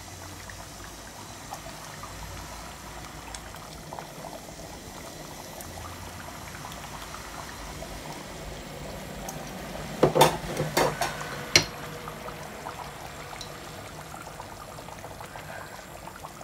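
A pot of meat curry simmering on the hob with a steady bubbling. Near the middle come a few sharp clinks as the measuring spoon knocks against the steel pot while chilli powder is added.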